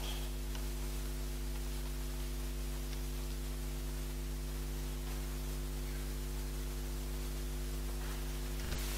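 Steady electrical mains hum with hiss from the sound system, a low buzz made of several steady tones; a faint click near the end.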